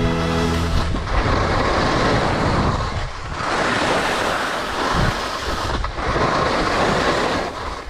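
Skis sliding on wet snow with wind buffeting the action camera's microphone, a dense rushing noise that surges and eases three times.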